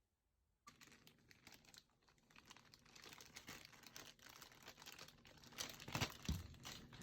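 Crinkling and rustling with many quick crackles, starting suddenly about a second in, with a louder knock near the end.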